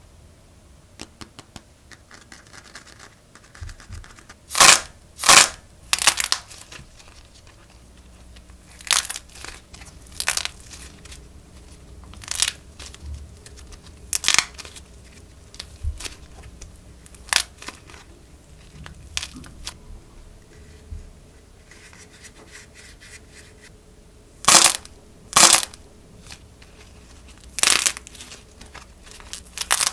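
Clay macarons being squeezed and torn apart by hand: the dried outer skin cracks in a dozen or so sharp crackling bursts a second or two apart, with quieter crinkling and tearing of the soft clay in between. The loudest cracks come a few seconds in and again near the end.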